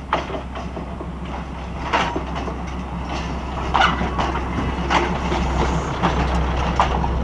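Diesel railcar train running slowly past at close range, its engine giving a steady low rumble while the wheels clack over the rail joints about once a second. The sound grows louder as the cars come alongside.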